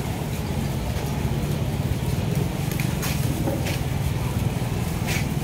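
Busy food-court background din: a steady murmur of crowd chatter with a few scattered clinks and clicks.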